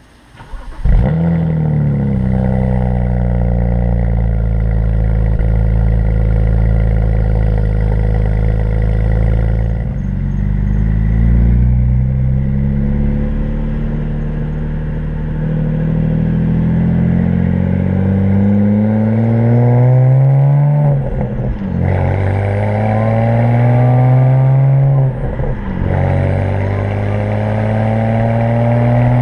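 BMW 335i's turbocharged inline-six accelerating hard through the gears at full throttle: engine pitch climbs steadily in each gear and drops sharply at each upshift, about three times. The owner traced misfires and backfires on these full-throttle runs to the ignition coils and spark plugs.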